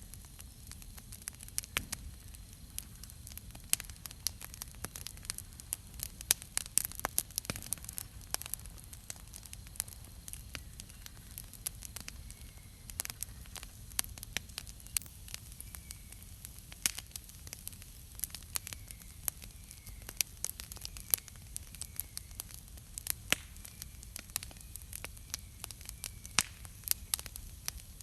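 Wood campfire crackling, with frequent sharp snaps and pops over a low steady rumble. From about halfway through, faint short bird chirps repeat in the background.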